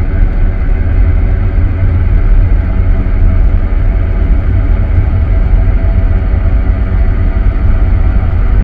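Experimental ambient noise music: a loud, dense, steady low rumble with a haze of noise and faint held tones above it, unchanging throughout.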